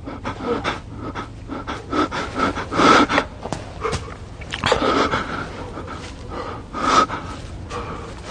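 A person breathing hard in irregular, noisy breaths, a few of them louder, about two, three, five and seven seconds in.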